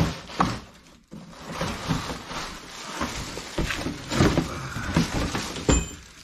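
Plastic air-pillow packing crinkling and rustling as it is pulled out of a cardboard box, with the box being handled and a sharp knock near the end.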